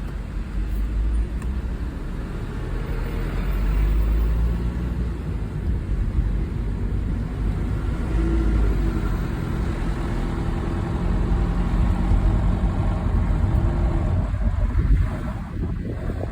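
Mercedes-Benz car running: a steady low rumble with faint whining tones over it, recorded to show an abnormal noise from the car.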